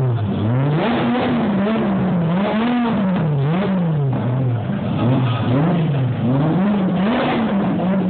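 V8 car engine being revved over and over as the car pulls away, its pitch swinging up and down a little more than once a second.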